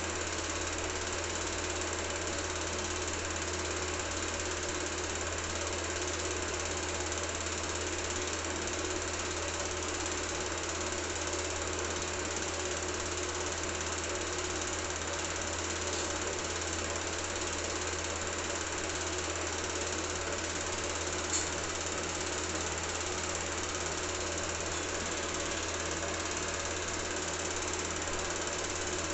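Cine film projector running steadily, the continuous mechanical sound of its motor and film-advance mechanism, with one brief click about two-thirds of the way through.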